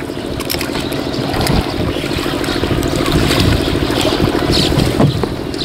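Wooden rowing boat under way, its oars stroking the water with a couple of sharp knocks of the wooden oars in their pegs, over a steady low hum.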